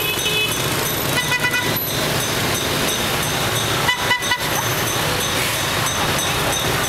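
Heavy scooter and motorbike traffic running through an intersection, with a steady hum of small engines. Horns give a few quick beeps about a second in, then another short cluster of toots about four seconds in.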